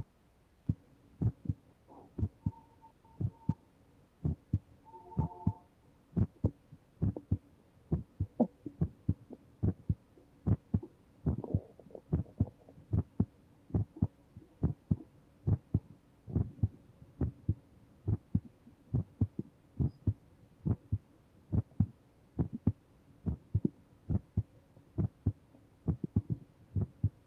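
Human heartbeat, a steady double 'lub-dub' thump repeating about once a second.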